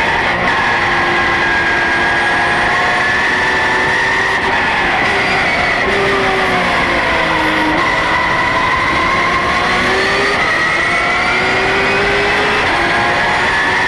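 Porsche GT3 Cup race car's flat-six engine at racing speed, heard from inside the stripped-out cabin over road and wind noise; the revs drop for a couple of seconds past the middle, then climb steadily under acceleration.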